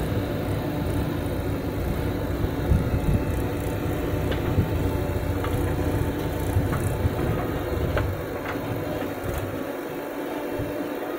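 Diesel engine of a JCB 3DX backhoe loader running as the backhoe swings a bucket of soil over a tractor trolley and dumps it, with the tractor's engine running alongside. A few short knocks come around the middle, and the low rumble eases after about eight seconds.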